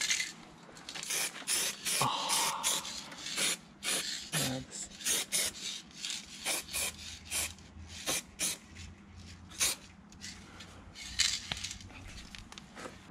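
Aerosol spray-paint can sprayed in many short hisses, about two a second and irregularly spaced, as parts of the body are touched up with paint.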